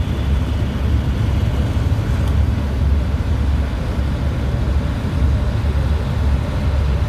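Allis-Chalmers farm tractor's engine running as it drives slowly past, a steady low rumble.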